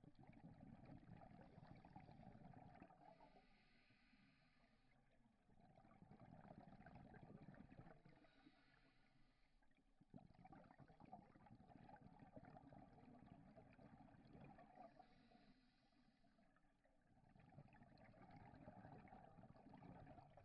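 Scuba diver breathing through a regulator underwater, heard faintly. Long bubbling exhalations alternate with shorter hissing inhalations, about four breaths in slow, regular succession.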